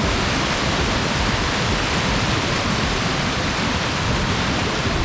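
Waterfall and whitewater mountain creek rushing over boulders: a steady, loud rush of water.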